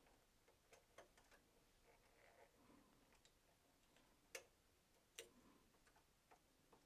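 Near silence, broken by three short, faint clicks of a metal two-prong transfer tool and latch needles on a Brother 260 bulky knitting machine's needle bed as one stitch is moved inward: one about a second in, and two close together around four and five seconds.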